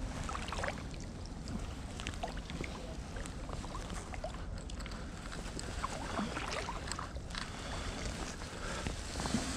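Kayak paddle strokes in calm canal water: the blades dipping in and dripping, with small splashes and light knocks.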